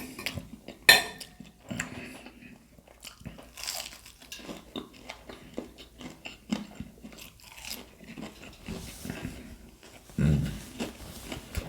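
Close-up crunching and chewing of fried, breaded seafood, with many small crackles and a sharp loud crunch about a second in. A dull low thump comes near the end.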